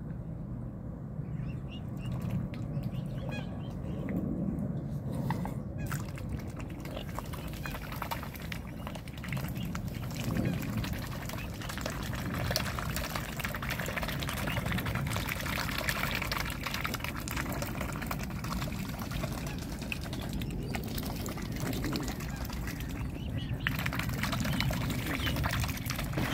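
Mute swans and cygnets feeding with their heads in the shallows: a continuous run of small splashes and sloshing water as their bills work the water.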